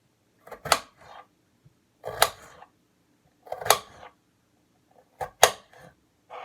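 Knife chopping potatoes on a cutting board: four loud knocks about a second and a half apart, each with a few lighter taps.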